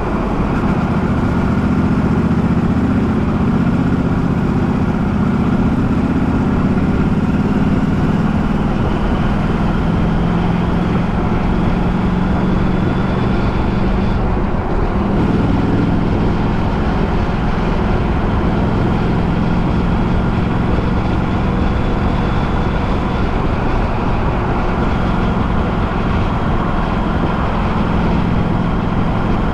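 A vehicle on the move at a steady pace: continuous engine and road noise.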